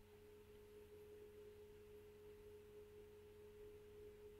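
Near silence: room tone with a faint steady tone.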